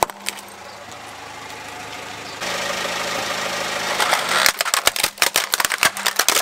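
Car engine idling steadily, then from about four seconds in a rapid run of sharp plastic cracks and snaps as the tyre rolls onto a plastic toy fire truck and crushes it.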